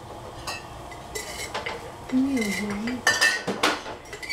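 Metal cutlery and dishes clinking and clattering: a scatter of sharp clinks with short ringing, densest about three seconds in. A brief low hum of a voice comes just before.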